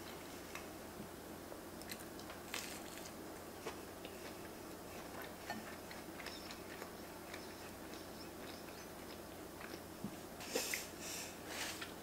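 A person chewing a mouthful of soup-soaked grilled cheese sandwich, with soft mouth sounds and small scattered clicks. A short run of crackly rustling comes near the end.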